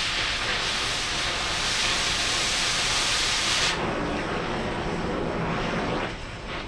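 Oxy-fuel cutting torch hissing loudly as it cuts steel plate. A little under four seconds in, the high hiss of the cutting jet cuts off sharply, leaving the lower sound of the preheat flame still burning.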